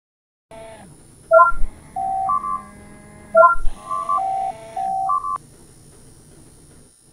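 Two phrases of electronic beeps at several stepped pitches, like cartoon robots talking in tones, each phrase opening with a low thud, over a low steady background hum.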